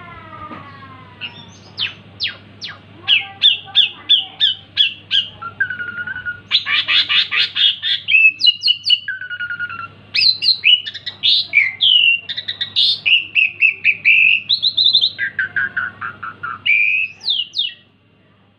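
Asian pied starling (jalak suren) singing a long, varied song: quick series of repeated chirps, whistled notes and harsh chattering, with a faint steady hum behind it. The song stops shortly before the end.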